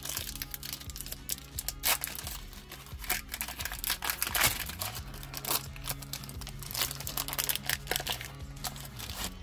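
Foil booster-pack wrapper crinkling and tearing as it is pulled open by hand, with a dense run of sharp crackles, over quiet background music.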